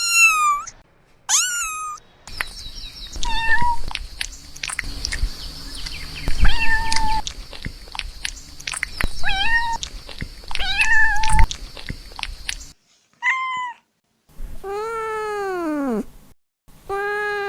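Kittens meowing over and over in short, high, thin cries, each bending in pitch. A rustling, clicking noise runs under most of the first two-thirds. Near the end comes a longer, lower meow that falls away.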